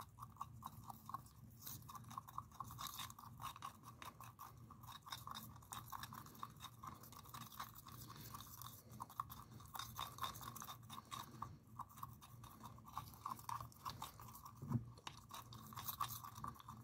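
Wooden skewer stirring and scraping thick, gritty glitter paint in a small jar: a faint, continuous run of quick, irregular scratchy clicks.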